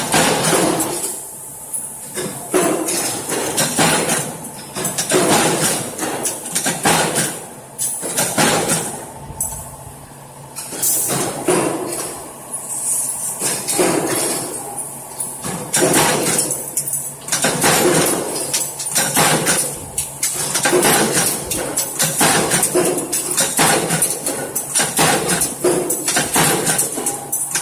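Mechanical flywheel punch press stamping steel strip into butt hinge blanks: fast, repeated metallic clanks of the ram striking, one after another.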